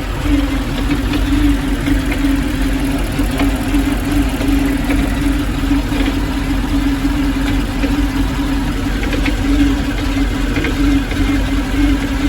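Chevrolet Malibu engine idling roughly: a steady hum over a low rumble, with scattered light ticks.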